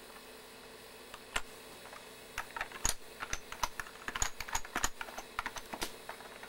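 Typing on a computer keyboard: a lone key click about a second in, then a run of irregular key presses, over a faint steady hum.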